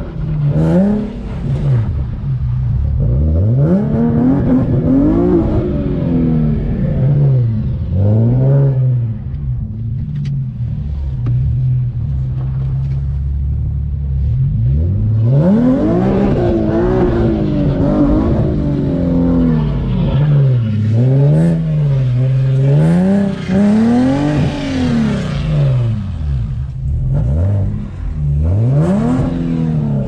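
Tuned Infiniti G37's 3.7-litre V6 revving hard while driving on snow, its pitch rising and falling over and over.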